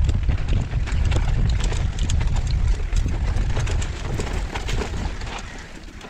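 Mountain bike descending a dirt singletrack: wind rushing over the helmet camera's microphone, with the tyres rolling over dirt and dry leaves and the bike clicking and rattling over bumps. The wind rush eases near the end.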